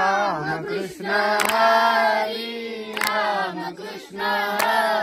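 A group of children singing a devotional bhajan together in long, held notes, with sharp claps marking the beat about every second and a half.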